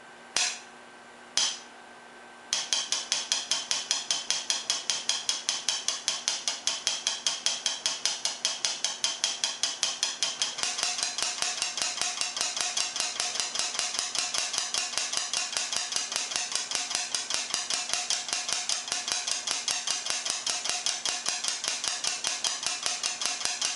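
Air dryer switched on and clicking: two single clicks, then a fast, even run of sharp clicks from about two and a half seconds in that grows faster and denser about ten seconds later. The clicking is the fault the owner is showing.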